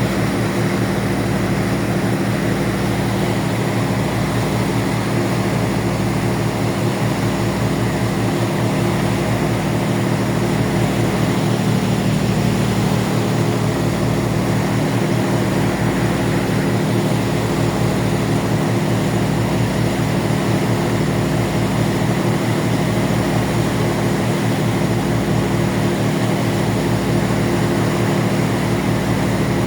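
Ferry's engines droning steadily: a low hum made of several steady tones over an even hiss.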